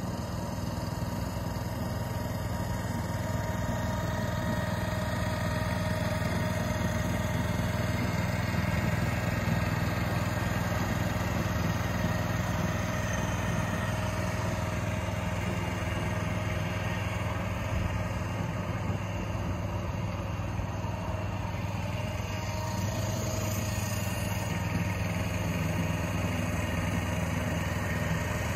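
Walk-behind reel greens mower's small engine running steadily at an even pitch while mowing.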